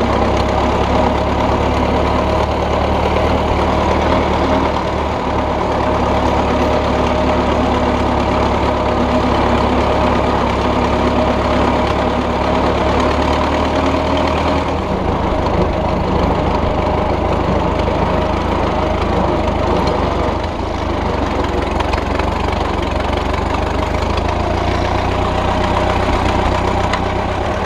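Model T Ford four-cylinder flathead engine of a homemade tractor running steadily as the tractor drives. Its tone changes about halfway through.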